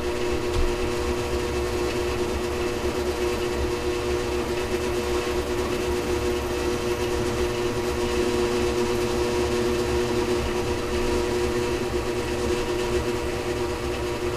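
Drill press motor running steadily while a long 3/16-inch bit is fed slowly down through wooden stock to bore a hinge pin hole.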